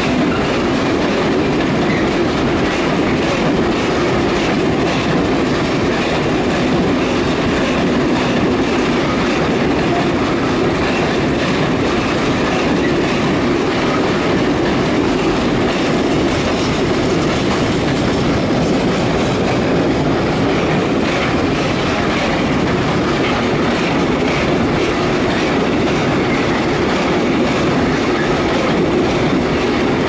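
Freight train of Eas high-sided open wagons rolling past, the wagons' wheels running steadily on the rails.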